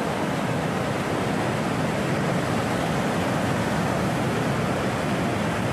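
Sea surf churning and washing over the rocks: a steady, unbroken rush of water.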